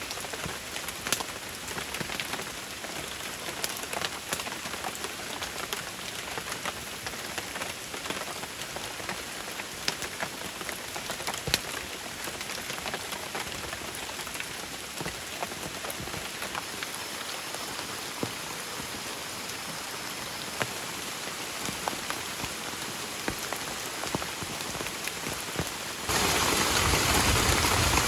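Rain falling steadily, with separate drops ticking sharply on a surface close by. About two seconds before the end it switches abruptly to a louder, denser downpour.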